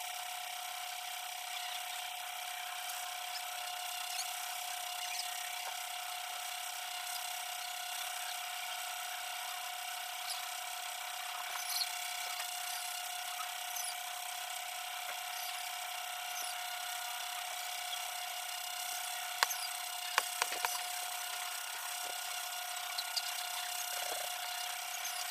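Kitchen cleaver scraping the skin off a ripe papaya on a plastic cutting board: a steady rasping noise over a constant high hum, with a few sharp knocks about twenty seconds in.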